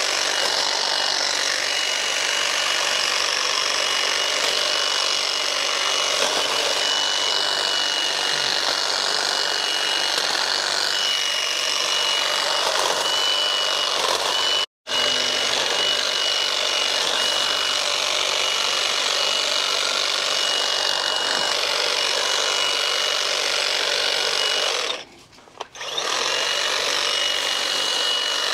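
EGO 56-volt cordless hedge trimmer running, its reciprocating blades cutting through shrub branches: a dense buzz with a steady high whine. It cuts out for an instant about halfway through, and stops for about a second near the end before running again.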